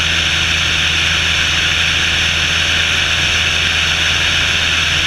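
Cessna 172's piston engine and propeller droning steadily in flight, under a loud, even rush of wind hiss.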